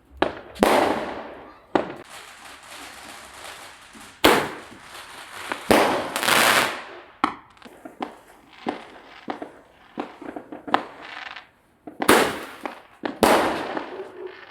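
Fireworks going off: an irregular string of sharp bangs, about six loud ones among many smaller pops, the louder ones trailing off in a hissing crackle.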